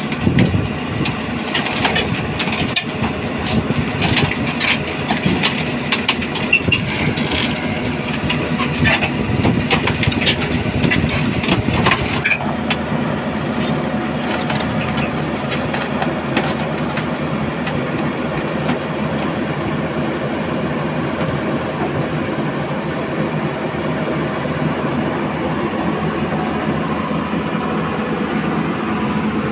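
Heavy machinery's engine running, with many clanks and knocks over the first twelve seconds, then a sudden change to a steadier, duller running sound.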